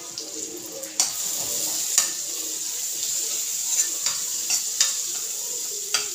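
Diced food sizzling in a hot frying pan as it is stirred, the sizzle growing louder about a second in. A few sharp clicks of the utensil against the pan stand out, two near the start and several near the end.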